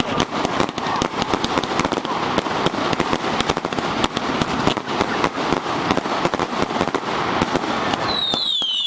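Xplode 'Smile From Hell' firework cake firing a dense, rapid run of shots, with bangs and crackle. Near the end it switches to several overlapping whistles that fall in pitch.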